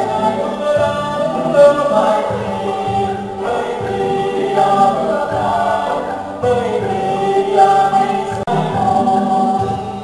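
Traditional Vietnamese water puppet theater music: several voices singing together over an instrumental accompaniment.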